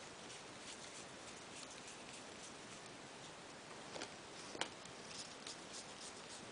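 Faint light clicks and rustles of Pokémon trading cards being handled and sorted by hand, with one sharper click about four and a half seconds in.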